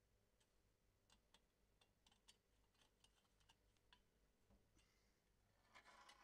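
Faint, scattered small metallic clicks of a screwdriver and hex key working the screws of an ATV exhaust heat shield, with a short rustle of handling near the end.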